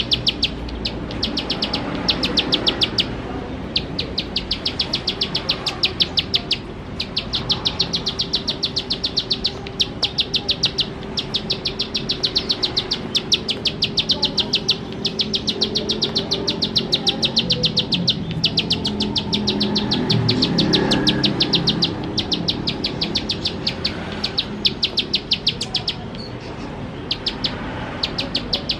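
Ciblek sawah (a prinia) singing a fast, rattling series of sharp repeated notes, the machine-gun 'nembak' song, in long runs broken by brief pauses.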